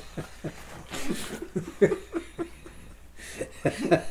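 An elderly man laughing in short chuckling bursts, with breathy exhales between them.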